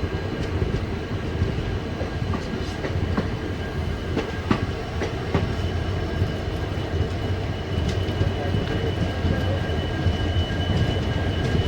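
Passenger train running on the track: a steady low rumble with scattered wheel clicks and a faint, high, steady whine.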